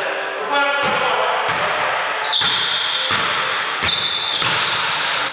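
Basketball dribbled on a hardwood court floor, bouncing several times at an uneven pace, each bounce echoing in a large gym.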